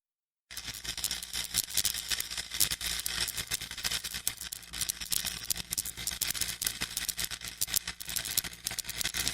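Digital glitch sound effect: dense, stuttering crackle of rapid irregular clicks over a steady low buzz, starting about half a second in.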